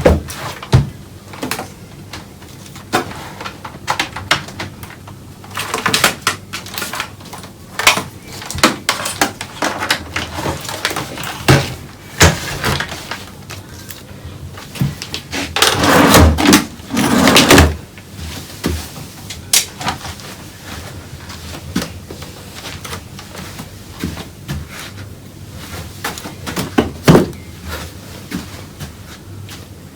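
Handling noise on a work surface: scattered clicks and knocks of small objects being picked up and set down, with a longer stretch of clattering and rubbing about halfway through.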